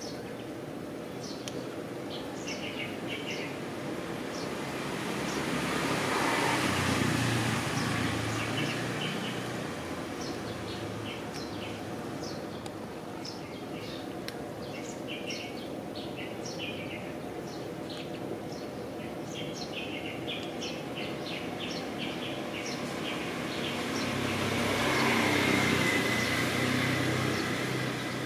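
Small birds chirping repeatedly. A motor vehicle passes twice, its noise swelling and fading a few seconds in and again near the end.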